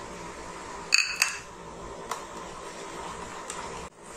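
Two sharp clinks about a second in, a quarter second apart, each ringing briefly, as a bowl knocks against the rim of a plastic mixing bowl while flour is tipped in. A fainter tap follows near two seconds, over a steady background hum.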